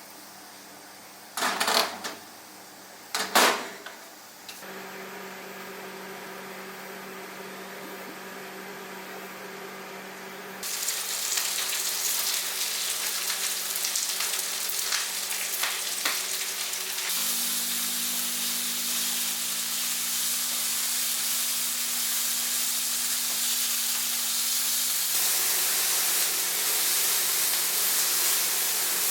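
Two sharp knocks, then a steady low hum. About ten seconds in, loud sizzling starts suddenly, food frying in a hot pan, and it grows louder near the end.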